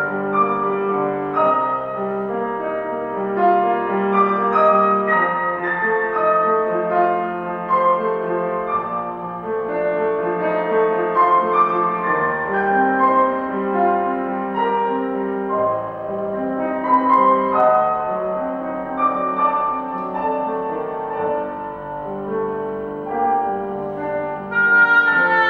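Grand piano playing a solo passage while the oboe rests. The oboe comes back in with a sustained note near the end.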